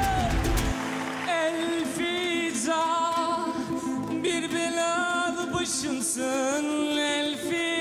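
A man singing to acoustic guitar accompaniment: a held note fades out about a quarter second in, then several long sung phrases with wavering, vibrato-laden held notes.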